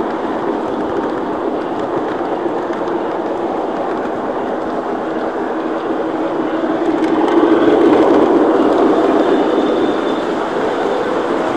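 Lionel O-scale three-rail model train rolling along the track, its wheels and motor making a steady whir as heard from aboard the moving train. The sound swells for a couple of seconds past the middle, then eases back.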